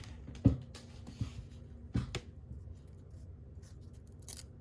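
Light handling of a freshly opened stack of baseball cards: a few soft taps and clicks. The sharpest comes about half a second in and another about two seconds in.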